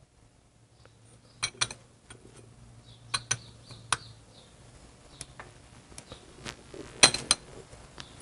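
Irregular, sharp metallic clicks, often in pairs, from a ratchet wrench tightening the nut of a cam bearing puller to draw the old cam bearing out of a Harley-Davidson Evolution engine case; the loudest pair comes about seven seconds in.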